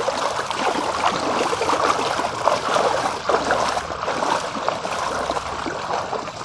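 Several people wading barefoot through a shallow muddy ditch, their feet sloshing and splashing in the water with each step, a continuous irregular splashing.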